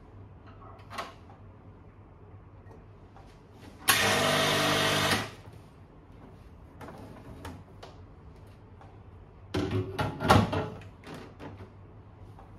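Nuova Simonelli Oscar espresso machine flushing its group head: the pump hums and water rushes out for just over a second, then cuts off sharply. A few seconds later, several clattering knocks of metal parts being handled.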